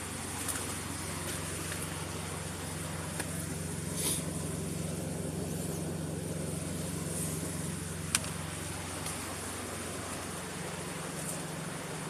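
Steady low hum of many honeybee colonies at their hive entrances, with a couple of sharp clicks about four and eight seconds in.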